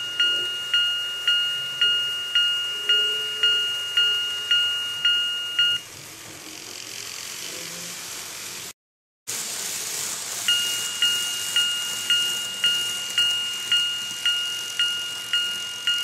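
Electronic crossing bell of a TOMIX TCS automatic level-crossing model, a two-tone ding repeating a little under twice a second while the crossing is active. It stops about six seconds in, after the barriers lift, and starts ringing again about ten seconds in as the crossing activates once more.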